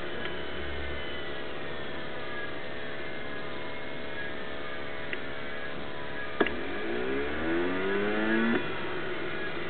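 Steady mechanical hum. About six and a half seconds in comes a sharp click, then an engine revs up, rising in pitch and growing louder for about two seconds before cutting off suddenly.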